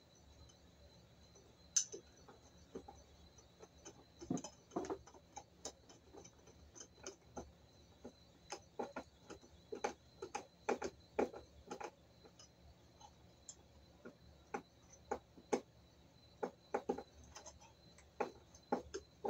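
A hand screwdriver driving screws into a metal light-fixture mounting plate: irregular small metallic clicks and ticks, sometimes in quick runs, with one sharper click about two seconds in.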